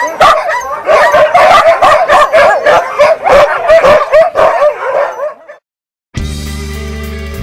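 A team of Siberian huskies barking, yipping and howling all at once in a dense, overlapping chorus, the eager noise of sled dogs waiting to run. It cuts off about five and a half seconds in, and guitar music starts shortly before the end.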